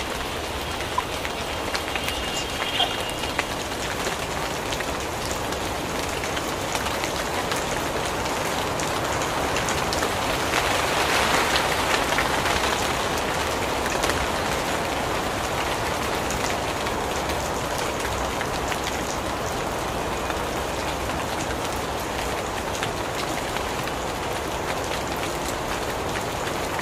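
Heavy rain falling, a steady even hiss that swells louder for a few seconds around the middle.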